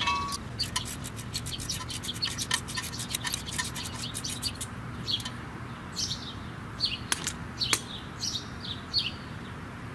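Ratchet on a 10 mm socket and extension clicking quickly as it backs out the front ABS wheel speed sensor's bolt, stopping after about four and a half seconds. Birds then chirp with short falling calls, and there are two sharp clicks near the end.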